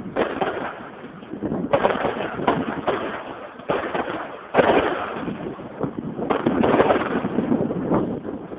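Fireworks bursting overhead: a rapid run of about nine sharp bangs, each fading off quickly before the next.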